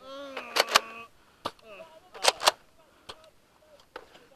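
Several sharp plastic clacks of spring-powered Nerf dart blasters firing, some in quick pairs. A person's voice calls out in the first second.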